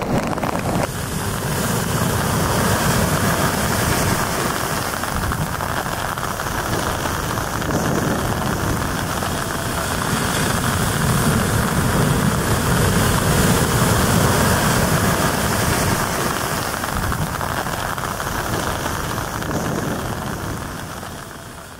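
Heavy ocean surf breaking, a steady roar of white water that swells and eases with the waves and fades out near the end.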